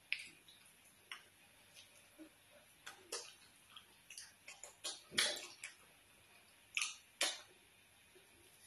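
Fingers pinching and squeezing fufu in slimy ogbono soup, making irregular wet squelches and sticky clicks, several of the sharpest around the middle.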